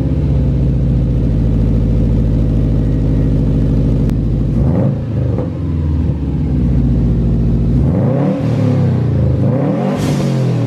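Subaru WRX's turbocharged 2.5-litre flat-four, breathing through a newly fitted catless downpipe, idling steadily, then revved: a couple of short blips about five seconds in and rising and falling revs over the last few seconds.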